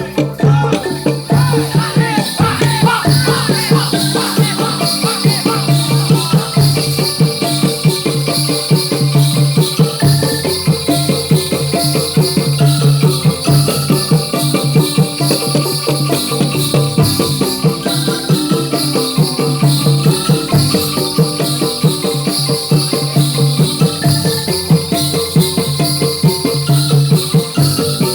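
Topeng Ireng dance music: loud, fast rhythmic drumming with a constant jingling rattle from the many small bells worn on the dancers' legs.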